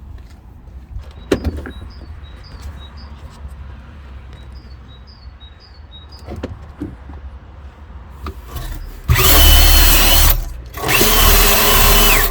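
Electric power drill run in two loud bursts of about a second and a half each near the end, with a steady whine that sags as each burst stops. Light clicks and knocks of handling come before it.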